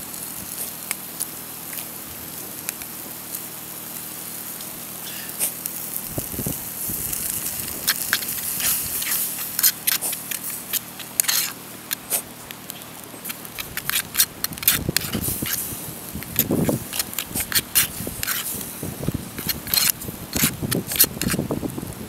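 Wood fire in a stone hearth crackling, with sharp irregular pops that come much thicker after about eight seconds, and a few dull low thumps mixed in.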